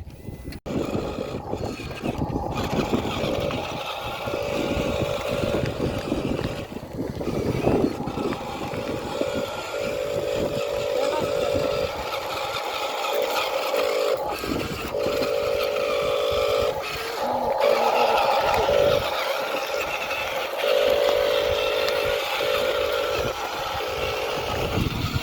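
Small electric motors of remote-control toy construction vehicles whirring in repeated bursts of one to three seconds, starting and stopping as the controls are worked. One burst is higher-pitched than the others.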